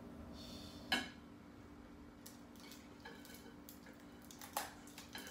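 Cutlery clinking and scraping on dinner plates, with a sharp clink about a second in and another near the end, over a steady low hum.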